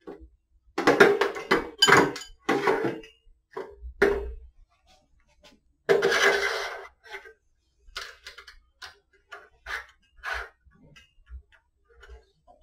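Stainless-steel bars and clamps of a conveyor mounting stand being handled and fitted together. A quick run of metal clinks and knocks, a longer scrape about six seconds in, then lighter scattered clicks.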